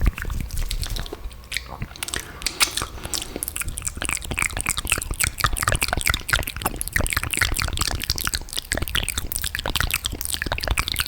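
Close-miked wet mouth sounds: a rapid, continuous stream of saliva clicks, smacks and crackles from lips and tongue.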